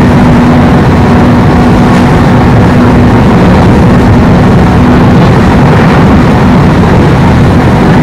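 Interior of a 103 series electric train running between stations: steady, loud rolling and traction noise with a steady low hum.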